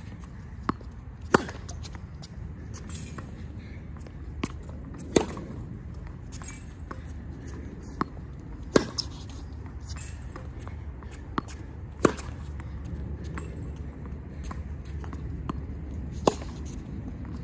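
Tennis balls struck with a racket on groundstrokes, five sharp pops about every three and a half to four seconds, each with a smaller tap of the ball bouncing on the hard court just before it. A steady low rumble runs underneath.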